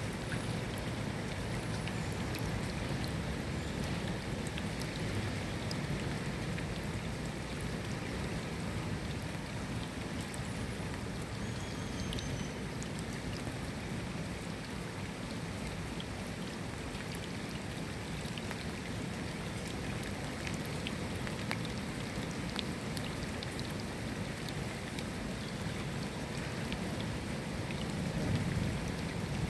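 Steady rain, with scattered single drops ticking on a surface. Near the end a low rumble of thunder begins to swell.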